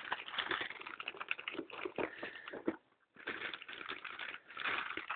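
Plastic packaging crinkling and rustling as it is pulled off a new laptop, in quick irregular crackles, with a short pause about three seconds in.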